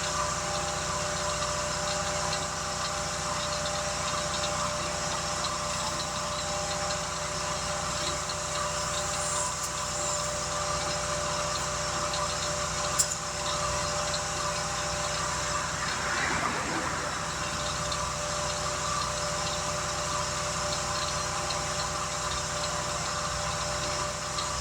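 A machine running steadily, giving a constant drone with several steady tones through it, and a single sharp click about 13 seconds in.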